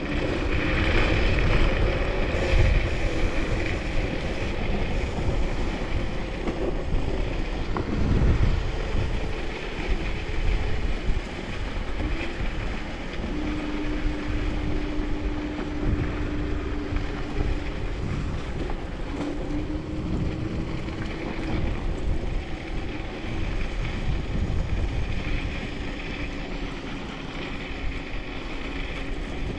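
Wind buffeting the microphone of a helmet- or body-mounted action camera while riding at speed on an electric scooter. A thin, steady motor whine runs under the wind from about twelve seconds in, shifting slightly in pitch.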